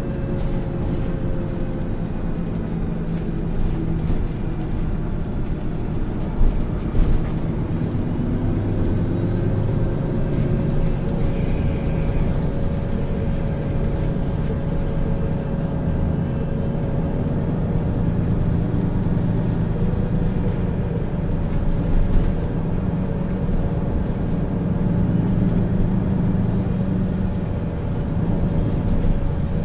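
MAN Lions City Euro 6 city bus's diesel engine and drivetrain running under way, with a steady whine above the engine note. There are a few short knocks about six to seven seconds in and again past the twenty-second mark.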